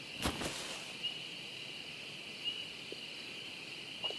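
Night-woods ambience from a film soundtrack: a steady, high chorus of insects chirping, with a soft knock about a quarter second in and a few faint knocks later.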